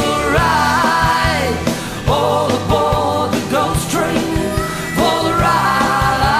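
Live rock band playing, with guitars, bass and drums; a lead melody line slides up and bends in pitch, starting a new phrase about every two to three seconds.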